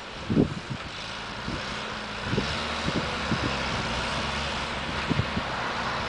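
Deutz-Fahr tractor engine running steadily under ploughing load, pulling a reversible plough, with short gusts of wind thumping on the microphone now and then.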